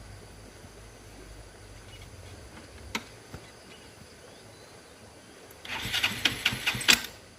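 A motorcycle engine running low and quiet, with a click about three seconds in, then a loud, rough, crackling burst lasting about a second and a half near the end.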